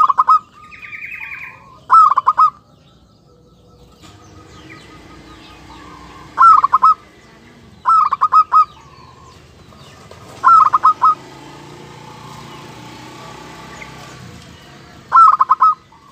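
Zebra dove (perkutut) singing six short bursts of rapid, clipped cooing notes, spaced a couple of seconds or more apart: the clear, crisp call wanted in a decoy bird.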